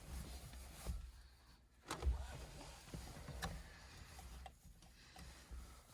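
Faint handling noise while the steering wheel and its wiring are fitted: a few small clicks and knocks, the loudest about two seconds in, over a low rumble.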